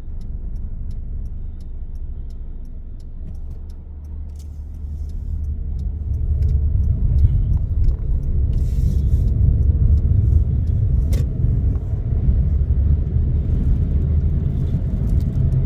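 Car cabin noise while driving in strong wind: a steady low road and wind rumble that grows louder about six seconds in, with scattered light ticks of blown dust striking the windshield.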